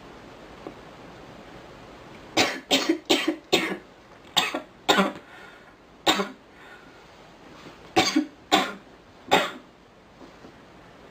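A girl coughing: about ten short, sharp coughs in several bursts, starting about two seconds in.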